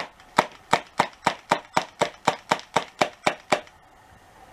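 Replica Glock 19 BB pistol fired rapidly at a phone, about fifteen sharp shots at roughly four a second, stopping about three and a half seconds in.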